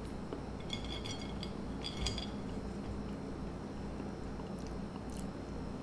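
Light clicks and brief clinks of small bear-shaped graham crackers and fingertips against a china plate as the cookies are picked up, in two short clusters about a second and two seconds in, over quiet room tone.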